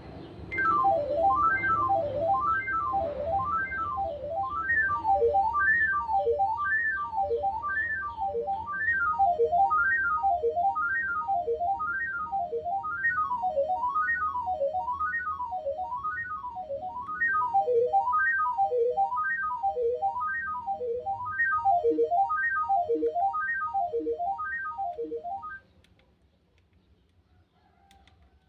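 Nokia 1315 monophonic ringtone playing through a Nokia 110 phone's speaker: a melody of quick single beeping notes that climb and fall in repeated runs, about one run a second. It cuts off suddenly about 25 seconds in.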